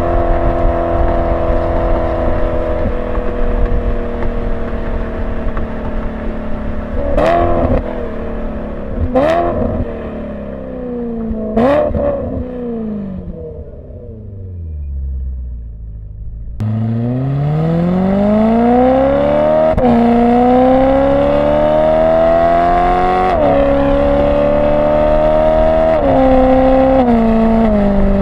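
BMW E92 M3's 4.0-litre V8 through a Borla ATAK exhaust without venturis, heard from a microphone on the car while driving. The engine pitch falls as the car slows, with three quick throttle blips on downshifts, sinks almost to idle, then climbs hard as the car accelerates, dropping in pitch at three upshifts.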